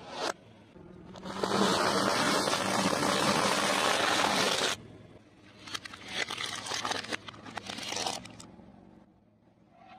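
A car tyre rolling slowly over objects and crushing them: about a second in, a dense crunching and crackling starts and stops abruptly after some three and a half seconds. It is followed by scattered smaller crackles that die away.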